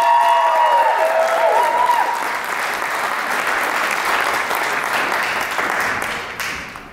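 Audience applauding, with a few whoops over the clapping in the first two seconds; the applause fades out near the end.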